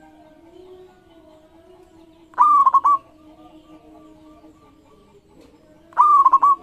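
Zebra dove (perkutut) singing: two short phrases, about two and a half seconds and six seconds in, each a long first note followed by a quick stutter of three or four notes. Fainter, lower calls from other birds carry on between the phrases.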